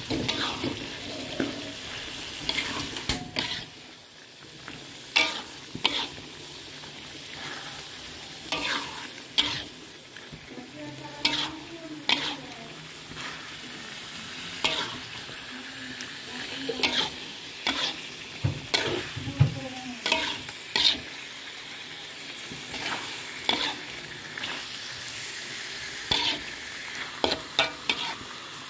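Spatula stirring sliced jengkol (dogfruit) through spice paste frying in a wok: a steady sizzle, broken every second or so by short, sharp scrapes and knocks of the spatula against the pan.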